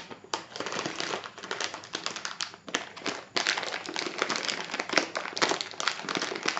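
A bag crinkling and rustling as a part is stuffed back into it, a continuous run of irregular crackles.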